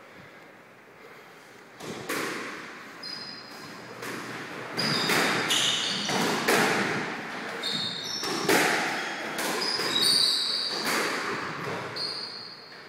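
Squash rally in a walled court: the ball is struck by rackets and hits the walls in a string of sharp, echoing cracks, starting about two seconds in. Court shoes squeak on the floor between the shots.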